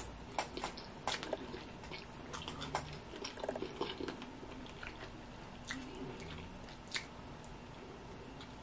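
Soft chewing and lip smacks with scattered small clicks and crackles of blue crab shell being picked apart by fingers, the clicks denser in the first second and again a little past halfway.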